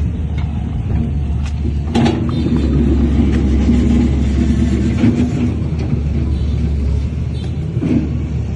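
Diesel engine of heavy earthmoving machinery running, with a steady low drone that grows louder for a few seconds from about two seconds in. Sharp knocks come about two seconds in, around five seconds, and near the end.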